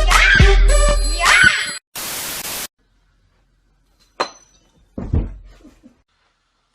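Loud music with a heavy bass beat cuts off abruptly, followed by a short burst of static. After a pause there is a sharp click and then a dull thud that fades out.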